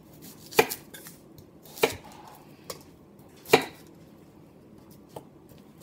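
Knife cutting through an onion onto a flexible plastic cutting mat: three sharp chops in the first four seconds, with a couple of fainter taps between and after.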